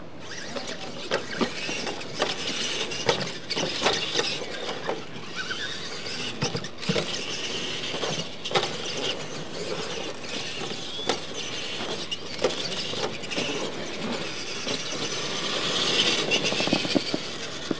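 Radio-controlled monster trucks racing on a dirt track: their drivetrains whine as they speed up and slow down, with repeated knocks and clatter as the wheels and chassis hit the ramps and the ground. The sound is loudest about sixteen seconds in.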